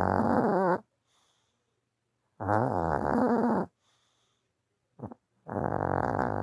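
Dog snoring in its sleep: three snores about two and a half seconds apart, each about a second long, with a brief short snort just before the last.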